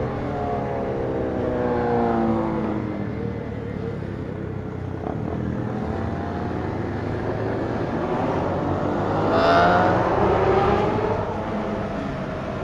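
Sport motorcycle engines on a group ride. The pitch falls over the first few seconds as the throttle is eased, then an engine revs up to a loud peak about ten seconds in and drops away again.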